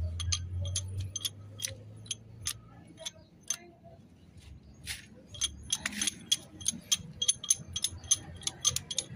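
Bottle hydraulic jack being pumped with a steel bar as its lever, giving sharp metallic clinks a few times a second as the jack raises the tractor's axle. The clinks pause briefly midway, then come quicker and more evenly. A low hum runs under the first couple of seconds.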